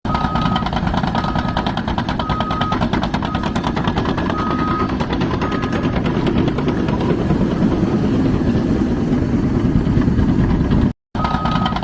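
Small electric DC motor of a homemade toy road roller running, a steady fast rattling buzz from the motor and its drive. Short high beeps repeat about once a second during the first half, and the sound cuts out for a moment near the end.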